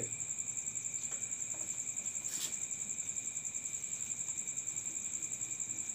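A cricket chirping steadily in a fast, even pulse, with a single faint click about two and a half seconds in.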